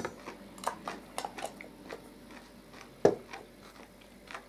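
Eating sounds at the table: chewing and mouth noises with scattered light clicks of forks on plates, and one louder short knock about three seconds in.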